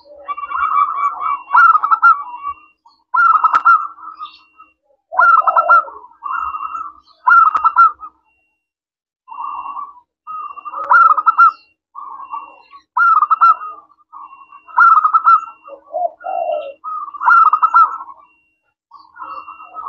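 Zebra dove (perkutut) cooing: repeated phrases of fast, stuttering coo notes, one every second or two, with a short pause about eight seconds in.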